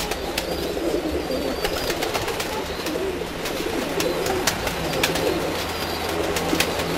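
A loft full of domestic pigeons cooing, many low coos overlapping without a break, with scattered sharp clicks among them.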